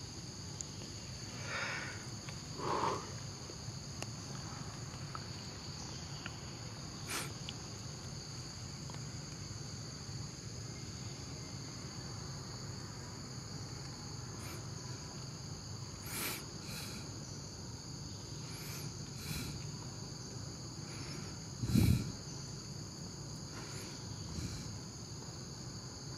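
Steady chorus of insects, a constant high trilling, with a few faint scattered clicks and one louder low thump late on.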